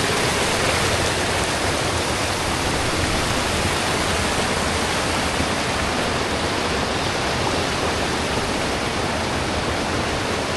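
Waterfall water rushing in a steady, even roar.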